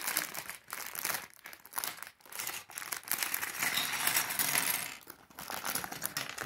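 Clear plastic Lego parts bag crinkling as it is worked open and shaken out, with small plastic bricks tipping onto a wooden table and clattering. The rustle comes in uneven bouts with brief pauses.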